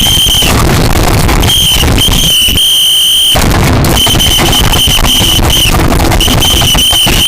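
Loud, distorted alarm sound: a shrill high steady tone sounding in uneven stretches of about half a second to two seconds, over a harsh crackling noise.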